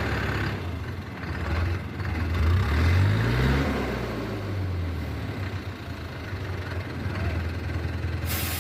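Diesel engine of heavy construction machinery running, revving up about three seconds in and then dropping back to a steady idle.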